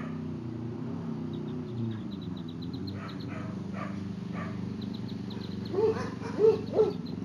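Black-bellied whistling ducklings giving thin, high peeps over a steady low hum, with three louder short calls near the end.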